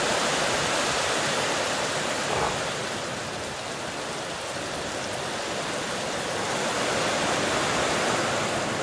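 Rain pouring down steadily, an even hiss that eases slightly in the middle and swells again near the end.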